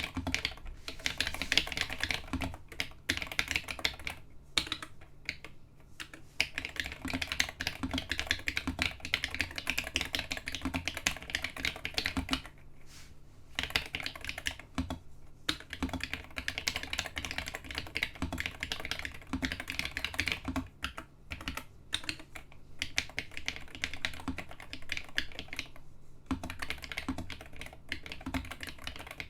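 Typing on a homemade 68% mechanical keyboard fitted with first-generation 'Space Invader' switches (vintage Alps SKCC): fast runs of key clicks, broken by a few short pauses.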